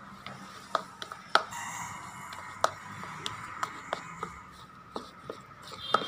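A metal spoon clicking and scraping against a small plastic bowl while stirring a soft, crumbly paneer mixture, in irregular sharp taps.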